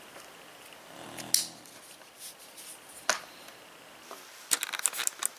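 Sharp clicks and light rustling from handling a paracord survival bracelet and its plastic clip: single clicks about a second and three seconds in, then a quick run of clicks near the end.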